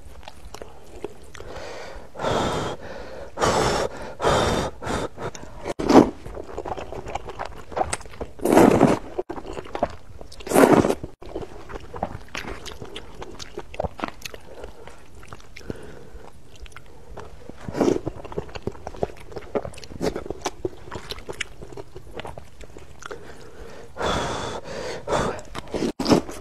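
Spicy rice noodles being slurped from a cup of broth in several loud bursts, with wet chewing and small mouth clicks in between.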